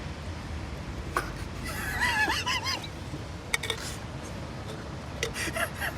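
Lada Priora engine idling with a steady low hum and a few scattered light clicks. A short wavering high-pitched sound stands out about two seconds in.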